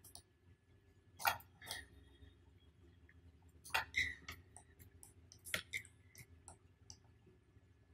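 Faint computer mouse clicks: about ten short, sharp clicks in irregular clusters, the loudest about a second in, over a faint steady hum.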